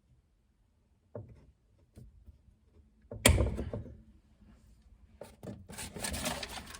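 Metal hand tools handled while a PEX pocket crimper is squeezed with locking vise grips: a few small clicks, then one loud, sharp clack a little over three seconds in, and clicking and rattling near the end as the tools are worked.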